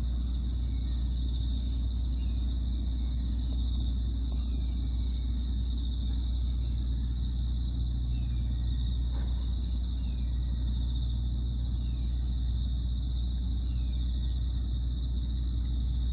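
Outdoor ambience: insects chirring in a steady, high-pitched drone over a continuous low rumble, with a few faint short falling chirps.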